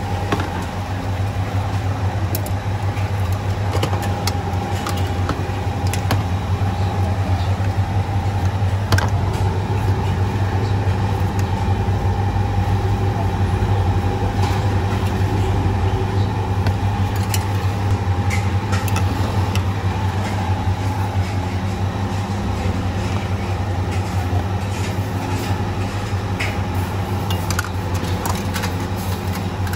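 A steady low drone, with scattered light clinks of porcelain bowls, spoons and a metal noodle strainer as bowls of noodle soup are made up.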